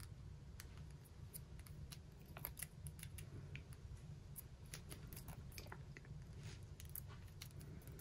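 Faint handling sounds of a grip strip being wound by hand around a Zebra MyTee Grip mechanical pencil barrel: scattered small clicks and soft rustles over a low steady hum.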